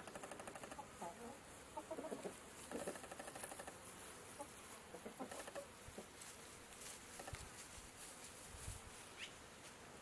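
Chickens clucking quietly in short runs of clucks, bunched mostly in the first half, over faint outdoor background noise.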